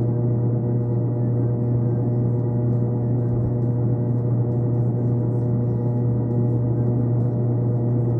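A steady, unchanging drone of several held tones, strongest at a low pitch, with no change in level.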